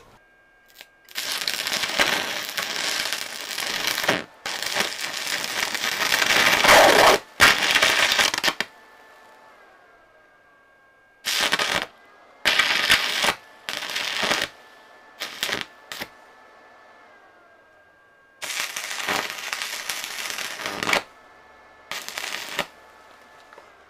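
Stick welding arc crackling and sizzling as the electrode burns against steel bars, in about nine separate bursts: three long runs in the first nine seconds, then shorter strikes as the arc breaks off and is restruck.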